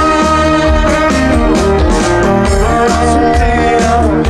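Live trot band music, loud, in an instrumental passage with no singing: held melody notes over a steady, pulsing beat.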